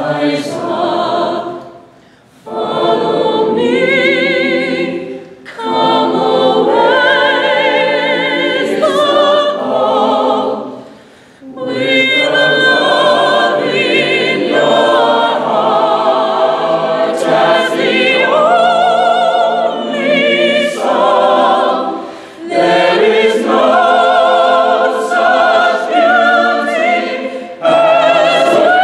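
Mixed-voice chamber choir singing a cappella, in phrases broken by short pauses for breath, about five times.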